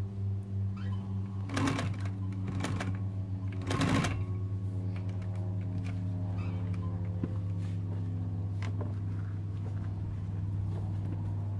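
Industrial sewing machine running: its motor hums steadily while the needle stitches a seam. Two louder clacks come about two and four seconds in.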